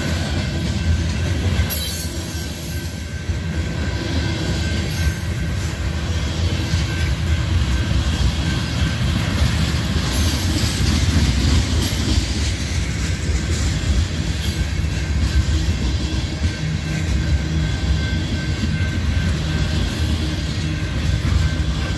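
Union Pacific manifest freight train's cars rolling past as the train slows: a steady low rumble of steel wheels on rail, with high brake squeal now and then, once about two seconds in and again around the middle.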